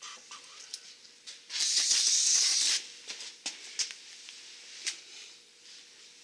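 Aerosol brake cleaner spraying in one hissing burst of a little over a second, about one and a half seconds in, cleaning the protective shipping oil off a new disc brake rotor. A few light clicks and taps come before and after it.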